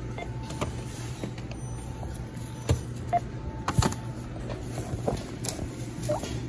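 Self-checkout area at a supermarket: a steady low hum with a few sharp knocks and clicks of items and the bagging stand being handled, the loudest a little under halfway and just past halfway in. A couple of faint electronic tones from the checkout station come near the start and again around the middle.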